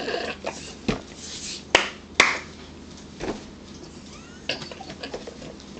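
A handful of sharp clicks and taps at a dinner table, two loud ones close together about two seconds in, with a faint short squeak near the end.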